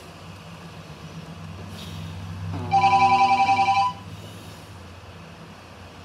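A Nokia mobile phone's loudspeaker gives a short electronic tone, a little under three seconds in: a bright trilling beep of steady pitches that pulses rapidly and lasts about a second, over a low steady hum.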